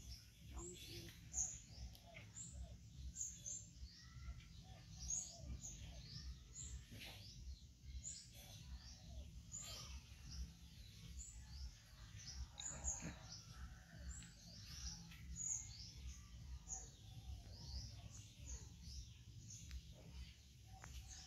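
Small birds chirping, short high calls scattered several times a second, faint over a low background hum.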